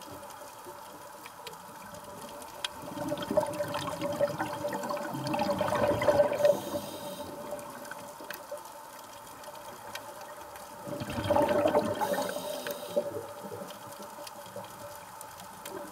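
Scuba diver breathing through a regulator underwater: two gushes of exhaled bubbles, one about three seconds in and another about eleven seconds in, with quieter bubbling between them. A faint steady tone runs underneath.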